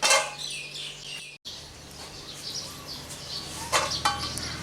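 Small birds chirping, with a sharp clack just at the start and another just before four seconds in.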